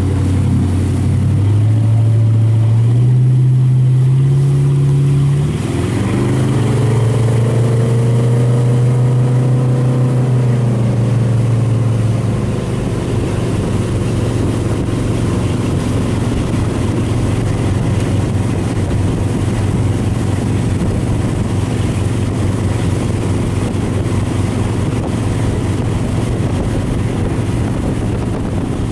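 Motorboat engine speeding up as it pulls a towable tube, its pitch climbing in steps over the first five seconds and again more gradually until about ten seconds in. It then runs steadily at speed, with the rush of wind and water over it.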